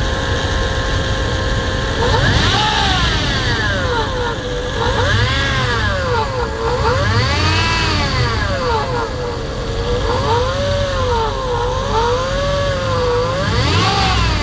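Jeep Grand Cherokee ZJ's 5.2-litre V8 idling, then revved up and down repeatedly from about two seconds in, with a whine whose pitch rises and falls with the revs. It is a strange noise that the owner cannot identify.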